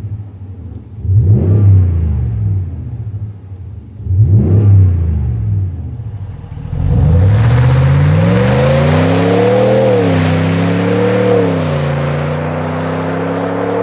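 2019 Ram 1500's 5.7-litre V8 through a Flowmaster FlowFX straight-through muffler. From inside the cab it gives three short revs a few seconds apart; then the truck accelerates hard, its pitch climbing and dropping twice as it shifts up, with a rush of road and wind noise over it.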